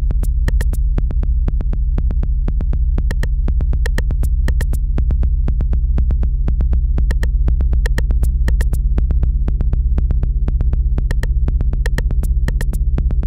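Electronic music: a steady low synthesizer drone overlaid with irregular clusters of sharp digital clicks.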